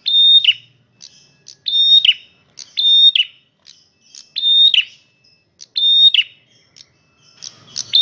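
Male prenjak merah calling loudly over and over: six sharp calls, about one every second and a half, each a short held high whistle that ends in a quick downward slur.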